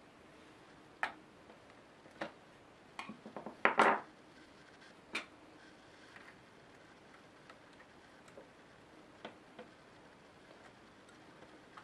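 Small hand tools clicking and tapping against an Asus K75VJ laptop's opened chassis and motherboard: scattered sharp ticks, with a quick cluster of the loudest clicks about four seconds in, then a few fainter ones.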